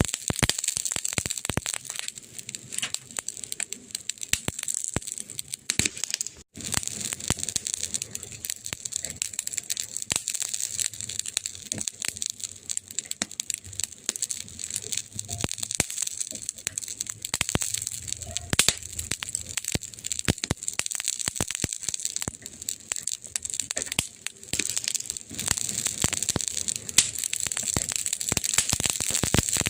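Wood fire crackling: dense, irregular pops and snaps over a steady hiss, with a momentary break about six seconds in.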